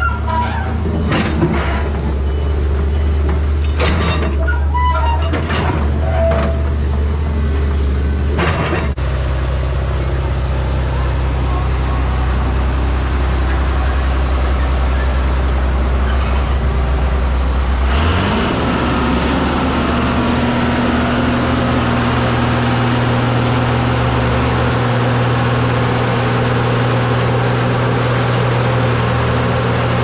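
Construction machinery's engine running steadily under load, with clanks over the first several seconds; about 18 seconds in the engine revs up and holds at a higher pitch.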